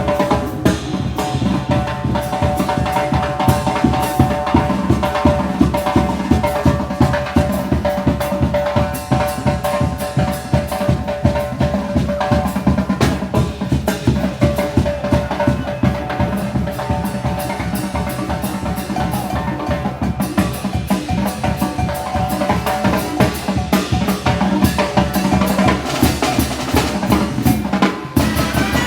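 Brass band playing a fast, driving muertero/calenda dance rhythm: bass drum and snare pound out a steady beat under sustained brass notes. The music drops out briefly near the end before picking up again.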